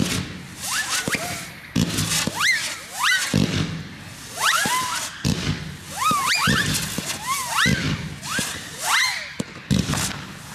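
Small consumer fireworks (F2 and T1 class) going off: quick rising whistles, several overlapping at a time, over dull launch thumps every second or two.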